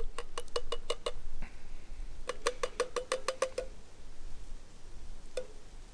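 Metal cans of mixed vegetables being knocked rapidly, about six knocks a second, each knock ringing briefly, to shake the last of the vegetables out into a cast-iron Dutch oven. The knocks come in two quick runs, then once more near the end.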